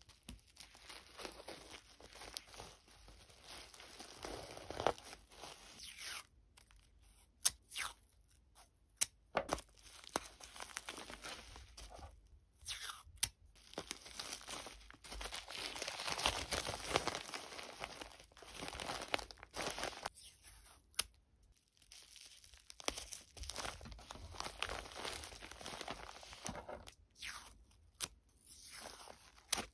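Packaging being torn open and crinkled by hand: irregular bursts of tearing and rustling, broken by several sharp clicks and short pauses.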